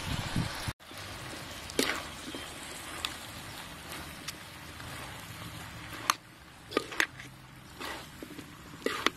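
Metal spatula clinking and scraping against a steel wok while stir-frying noodles, with a sharp tap every second or two over a low steady background.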